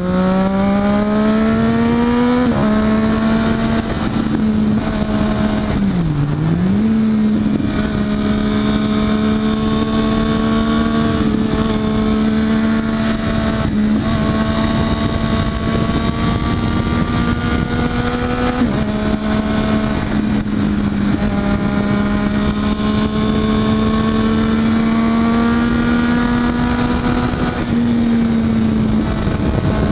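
Triumph Daytona 675R's three-cylinder engine revving up, its note climbing for the first two seconds or so, then holding a steady high pitch with a brief dip about six seconds in and small changes in pitch every few seconds.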